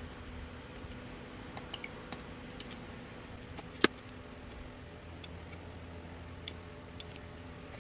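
Light clicks and taps of a razor-blade scraper and an LED light strip being handled, with one sharp click about four seconds in as the blade is pressed through the strip. A steady low hum runs underneath.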